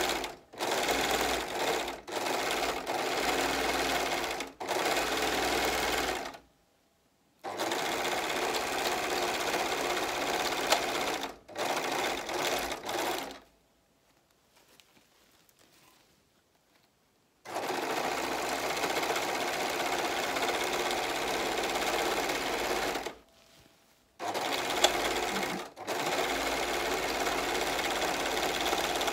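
Singer four-thread serger stitching sequined fabric, running in spurts with brief stops as the foot pedal is eased off, and one longer pause of about four seconds midway. Two sharp ticks stand out, one about eleven seconds in and one near twenty-five seconds.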